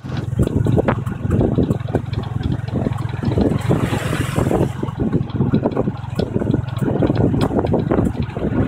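Motorcycle engine of a tuk-tuk running steadily while under way, heard from the towed passenger carriage, with road noise and frequent short rattling knocks.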